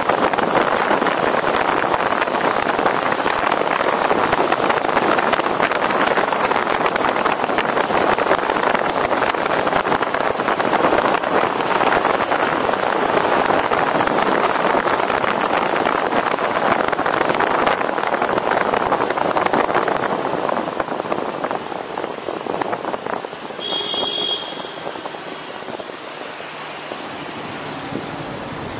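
Steady rush of wind over a roof-mounted action camera's microphone, with tyre and road noise from the moving MPV. The rush eases about two-thirds of the way through as the car slows, and a brief high squeak sounds near the end.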